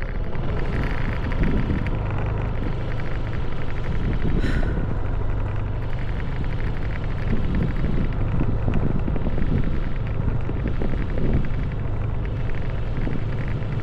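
A motor vehicle running steadily on the move, its low engine hum mixed with wind buffeting the microphone.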